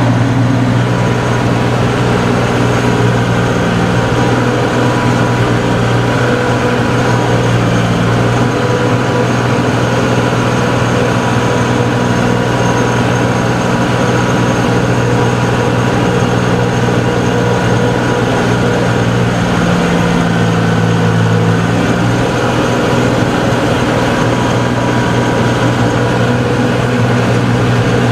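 Tractor engine running steadily under load with the PTO engaged at 540, driving a rear-mounted tiller set shallow into the soil. The engine note shifts slightly about twenty seconds in.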